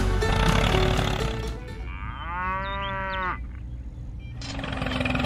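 Background music, then a single drawn-out moo, like a cow's, that rises and then falls in pitch for about a second and a half, followed near the end by a steady engine-like hum.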